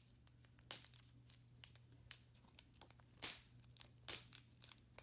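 Plastic wrapper of a toy mystery ball package crinkling and tearing as it is opened, heard as a few faint, scattered crackles and rips, the loudest about three seconds in.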